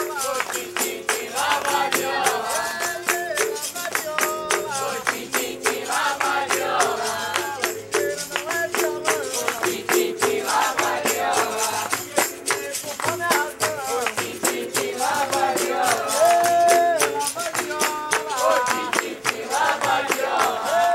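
Capoeira roda music: berimbaus sounding two alternating notes, with pandeiro jingles, steady hand clapping and group singing.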